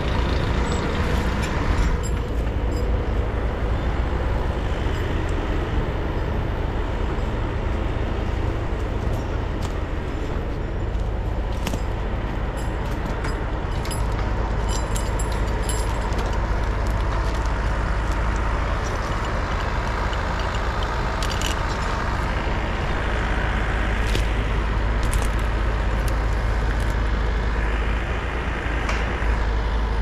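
Tractor engine of a Case Vestrum CVX running steadily under load while its Holzknecht HS850 forestry winch pulls logs in on the cable, with a few short clicks in the second half.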